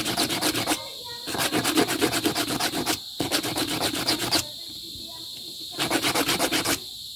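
Small hand file rasping quickly back and forth over scrap brass wire, about nine strokes a second, in four bursts with short pauses between.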